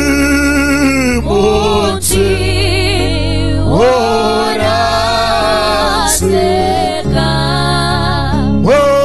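Two women singing a gospel song together into handheld microphones, in a few long phrases with held, wavering notes.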